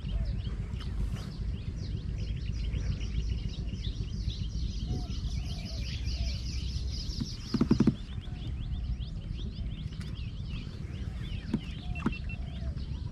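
Birds chirping in quick, repeated short calls over a steady low rumble, with a brief low sound about eight seconds in.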